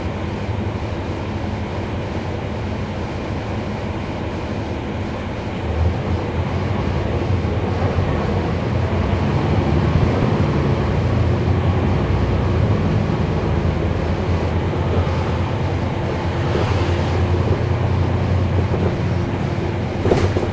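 Interior sound of a 2011 NABI 416.15 transit bus under way: its Cummins ISL9 diesel engine and ZF Ecolife automatic transmission running with a steady low drone. The drone grows louder about six seconds in and stays up, and there is a single sharp clunk near the end.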